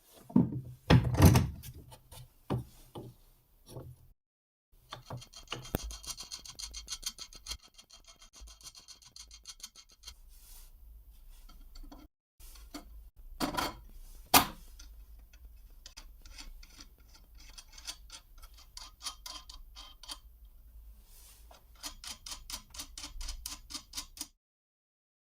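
A hand file stroking back and forth across a steel knife blade in runs of quick, even strokes. A few louder knocks come about a second in and again midway.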